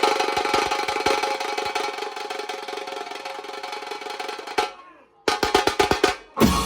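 Maharashtrian banjo party band playing: a sustained melody over fast drumming. About four and a half seconds in the music drops away, then a quick run of drum strokes and a short break before the full band comes back in near the end.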